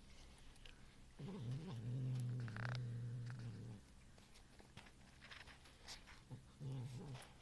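Domestic cat growling low while eating, guarding its food: one long growl of about two and a half seconds starting about a second in, and a short second growl near the end, with faint chewing clicks between.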